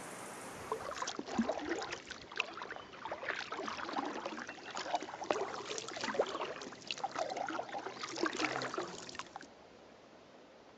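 Wooden double-bladed kayak paddle dipping into calm lake water, with an irregular patter of small splashes and drips from the blades. It starts about a second in and stops suddenly near the end.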